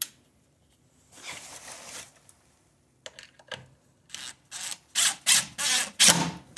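Cordless impact driver driving a screw through a steel security strike plate into a wooden door frame, run in about six short bursts starting about four seconds in. Before that come a click and some quiet handling noise.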